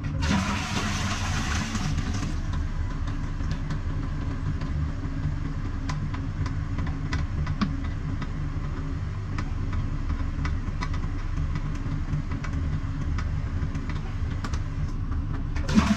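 A steady low mechanical hum, like an idling motor, runs throughout, with light scattered clicks. A brief rush of hiss comes near the start and again at the very end.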